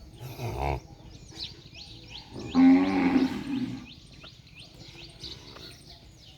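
A bovine on a dairy farm lowing: a brief call, then a longer, louder moo about two and a half seconds in, with birds chirping steadily in the background.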